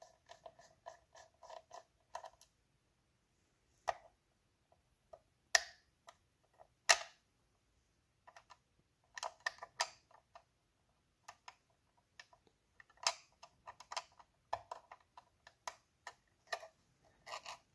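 Small screwdriver backing out the tiny retaining screw of an M.2 SSD, a quick run of faint creaky clicks for about two seconds. This is followed by scattered light clicks and taps of tools on the tablet's internals.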